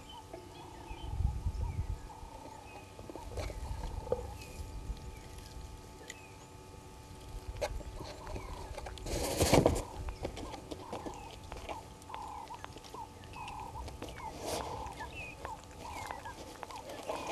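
Bushveld ambience: a bird calling in a steady series of short notes, about three every two seconds, with fainter chirps from other birds. A single loud rough burst about halfway through and some low rumble near the start.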